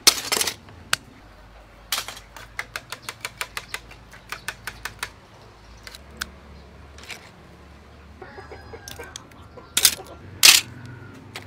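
Scallop shells clicking and clattering as they are handled and pried open by hand. There is a loud clatter at the start, a quick run of light clicks from about two to five seconds in, and two more loud clatters near the end.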